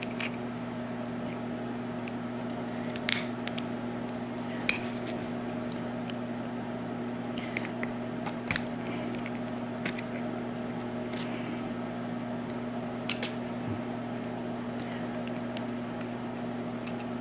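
Scattered sharp metallic clicks and taps from a Yale rim cylinder lock being worked by hand with its key and tools, about a dozen spread irregularly, over a steady low electrical hum.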